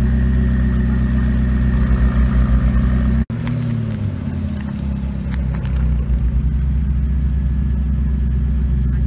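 McLaren 650S Spider's twin-turbo V8 running at low revs close by. After a sudden cut about three seconds in, the engine's revs fall and then hold steady as the car drives up.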